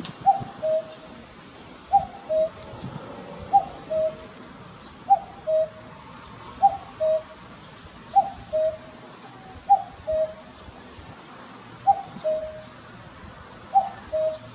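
Common cuckoo (Cuculus canorus) calling its two-note "cuck-oo", a higher note then a lower one, repeated steadily about every one and a half seconds, nine times.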